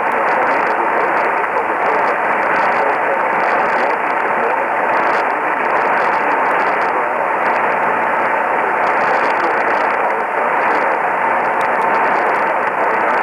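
AM radio reception thick with static hiss, with a faint voice reading the tornado warning message under the noise and a steady whistle tone running through it.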